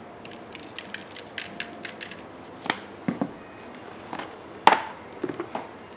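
Light clicks and knocks of hands and utensils handling food and containers, irregular, with one louder knock a little past the middle that rings briefly.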